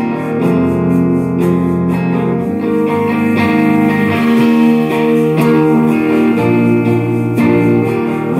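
A live band playing a song: electric guitars over drums, with occasional cymbal crashes.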